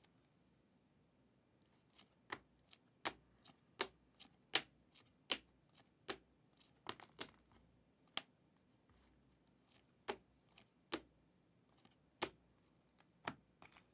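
Irregular sharp clicks and taps, about twenty of them starting some two seconds in, as sports trading cards are handled and set down on a table while they are sorted.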